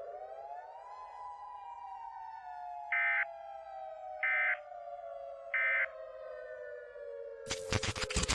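A siren tone rises briefly, then slowly winds down in pitch. Over it, three short, identical data-burst beeps about a second and a half apart mark the end of an Emergency Alert System message. A loud crackling burst of noise begins near the end.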